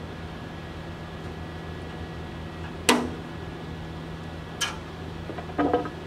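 Tin snips cutting sheet steel: a sharp metallic snip with a short ring about halfway through, a lighter one later, and a few quick metal clanks near the end, over a steady low hum.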